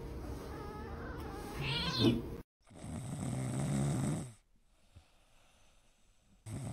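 A grey cat, held down by hands, gives a few wavering meows, the last and loudest about two seconds in. After a cut, a sleeping tabby cat snores for under two seconds, then it goes almost silent.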